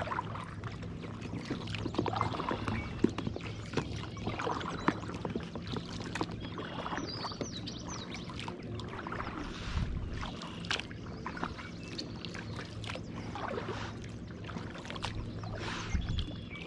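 Kayak paddle strokes splashing and dripping in the water, irregular and moderately loud.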